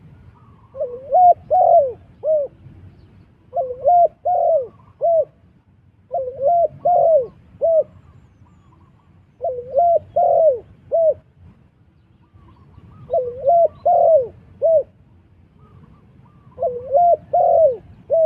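Spotted dove cooing: six repeated phrases of about four notes each, every three to four seconds.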